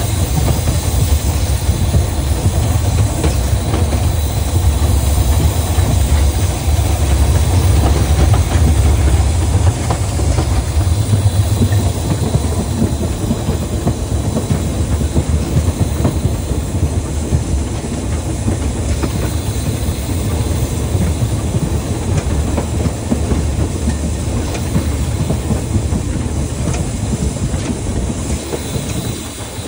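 Narrow-gauge steam train running: a steady, loud rumble with the clatter of wheels over rail joints, easing slightly near the end.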